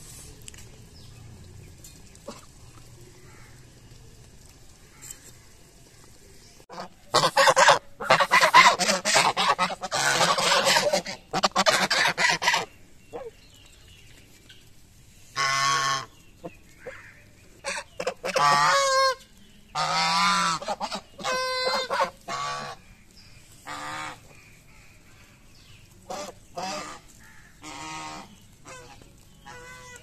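A flock of domestic geese honking. After a faint start, a loud overlapping chorus of honks breaks out about seven seconds in and lasts several seconds, then gives way to shorter separate bursts of calls that grow softer near the end.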